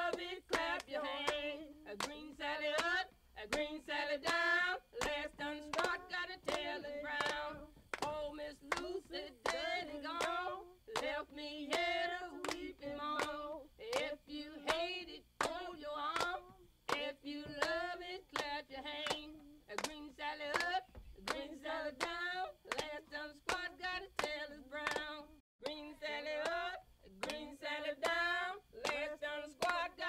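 Background music: a woman singing over a steady hand-clap beat.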